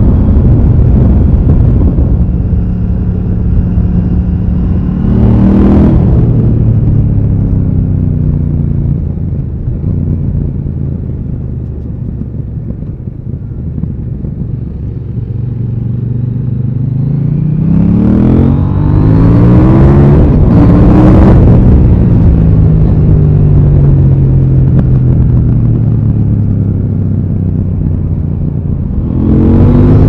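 KTM 890 Duke R's parallel-twin engine under riding load. The revs climb and break for a shift about five seconds in, then fall away as the bike slows. From about seventeen seconds it pulls hard through several quick upshifts, settles into a steady drone, and revs up again near the end.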